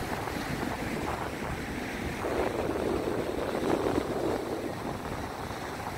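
Surf washing on a sandy beach with wind buffeting the microphone; the wash swells louder about two seconds in and eases off again after about four seconds.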